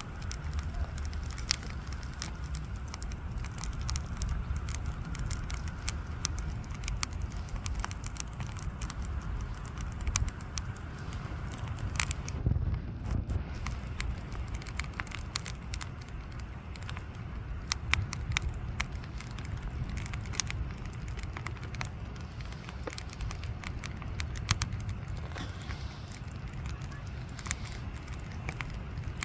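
Wood fire crackling, with irregular sharp pops, over a steady low rumble.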